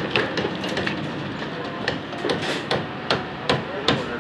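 Hammers striking wood and nails on timber formwork: a run of sharp, irregular knocks, a few to the second, over steady work-site noise.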